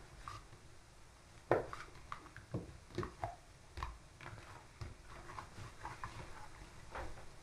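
Knife cutting through soft dough and tapping on the work surface, with dull thuds as the dough portions are set down: a handful of irregular soft knocks, the loudest about a second and a half in.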